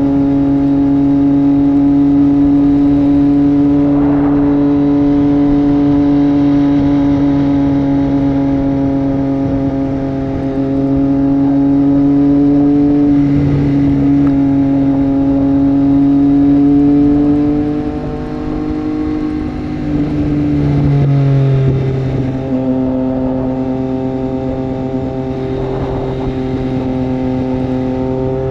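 Triumph Street Triple 765 RS's inline three-cylinder engine with a Racefit Growler full exhaust, cruising at steady revs. About two-thirds of the way in the throttle eases off and comes back, and the engine settles at slightly lower revs.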